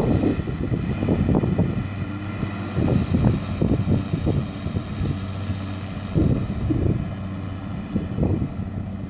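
Hemp mowing machine running steadily as it moves off across the field: a constant engine drone with a machinery whine above it. Irregular gusts of wind buffet the microphone throughout.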